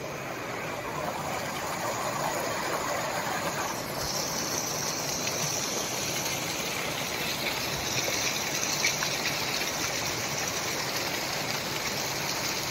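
Steady rush of stream water churning and splashing white, getting brighter and hissier from about four seconds in.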